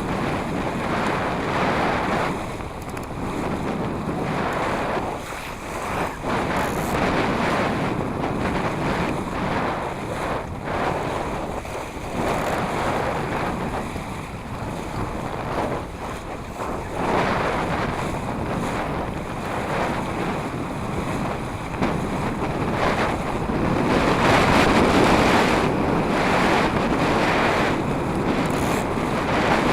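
Wind buffeting the microphone in gusts over rushing, splashing water, as heard aboard a small sailing dinghy under way.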